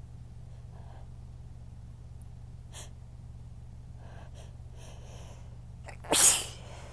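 A woman's breathy inhales, then one loud, sharp sneeze about six seconds in, one of a fit of strong sneezes that hurt her throat. A steady low hum runs underneath.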